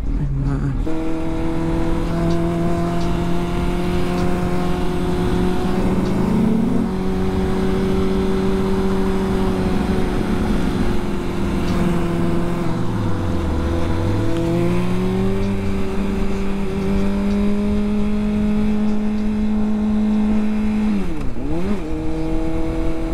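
Honda CBR600RR sport bike's inline-four engine running at steady revs under way, with wind rushing past. A little past halfway the revs fall and climb back, and near the end they dip sharply and recover.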